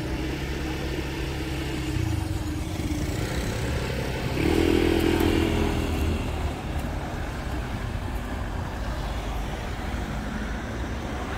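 Road traffic moving off: car engines idling and pulling away, with a motor scooter accelerating away close by about four and a half seconds in, the loudest part.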